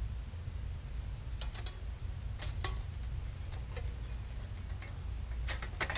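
Hinged stainless steel panels of a folding wood-burning hiking stove clicking and tapping lightly as they are handled and folded, scattered single clicks with a quick cluster near the end, over a steady low hum.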